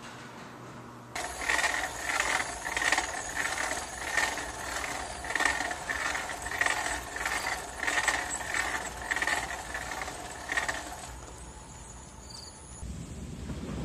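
Bicycle being ridden, with a short squeak repeating about one and a half times a second. The squeaking stops near the end, where a low rush of wind on the microphone takes over.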